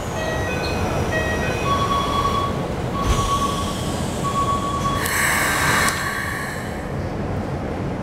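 Keikyu New 1000 series train at a platform during the door closing: a steady rumble under a series of electronic beeping tones, three of them longer and held, with the doors shutting about three seconds in. About five seconds in comes a short burst of pneumatic air hiss.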